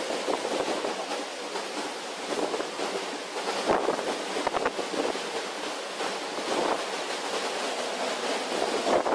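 Storm wind and heavy seas around a ship's bow: a steady rush of wind buffeting the microphone, with waves breaking and spray, surging louder several times.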